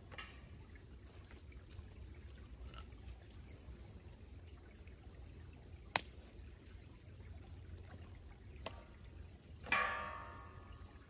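Creek water trickling, with a sharp click about six seconds in and a short ringing tone near the end that fades away over about a second.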